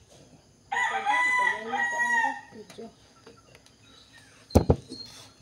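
A rooster crowing once, a single call of under two seconds starting about a second in. Near the end come two sharp knocks close together, louder than the crow.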